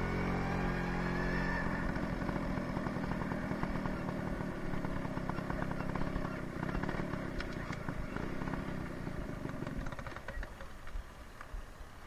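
Small motor scooter engine running while riding, with road noise. About ten seconds in the engine sound falls away as the scooter comes to a stop.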